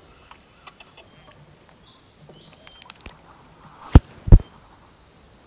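Faint short bird chirps over a quiet riverside background, with small scattered clicks. About four seconds in, two sharp, loud knocks close by, a fraction of a second apart.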